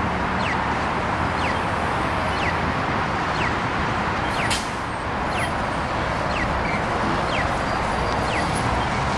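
Steady city street traffic noise, with a short falling chirp repeating once a second from a pedestrian crossing signal. A brief sharp noise stands out about four and a half seconds in.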